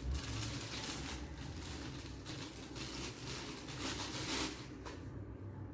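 Rustling and scraping of toy packaging being handled, with a few louder bursts of rustle.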